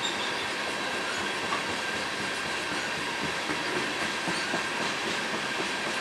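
Loaded tank cars of a freight oil train rolling past on the rails, a steady noise of wheels on track with a faint high tone held throughout.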